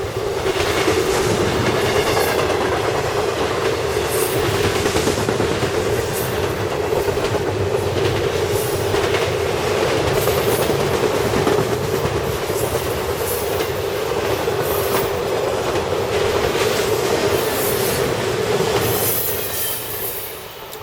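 CSX intermodal freight train rolling past: wheels clicking irregularly over the rail joints with a steady wheel-on-rail ring. The sound fades near the end as the train moves off.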